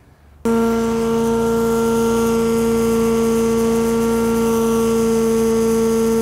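Delux Tornado 4800 vacuum recovery system running under suction, pulling air and wash water through the vacuum boom: a loud, steady droning whine over a rushing air sound that starts abruptly about half a second in.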